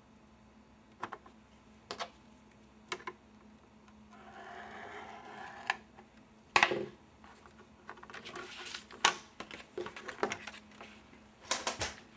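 Paper trimmer with a scoring blade creasing a card's fold line. Three separate clicks come first, then the scoring head scrapes along the track, a loud clack follows, and more scraping strokes and clicks end it.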